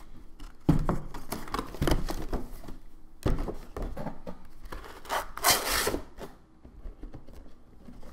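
Cardboard toy packaging being handled as a window box is slid out of its outer cardboard box: rubbing and scraping of cardboard with a few sharp knocks, and a longer sliding scrape about five and a half seconds in.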